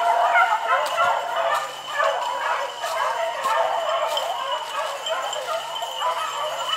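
A pack of beagles baying and yelping together, many voices overlapping without a break, as the hounds run a rabbit.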